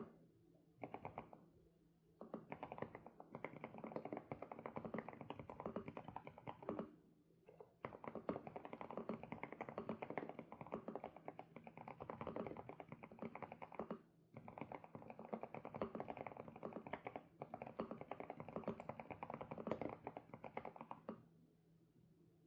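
Fast typing on an SPM PL108W mechanical keyboard with Sunset switches: rapid, continuous keystrokes in five runs of a few seconds each, broken by short pauses.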